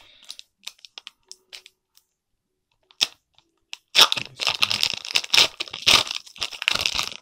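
Foil wrapper of a Pokémon booster pack being torn open and crinkled: a few light ticks, a sharp crack about three seconds in, then dense crinkling from about four seconds in.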